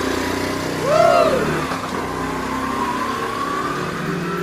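Motorcycle engine running, with a quick rev up and back down about a second in and a slowly rising whine after it.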